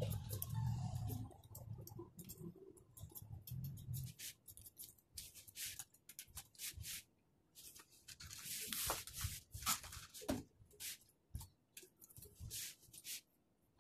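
Barber's scissors snipping hair over a comb: irregular runs of short, sharp clicks. A low, muffled sound sits under the first few seconds and fades about four seconds in.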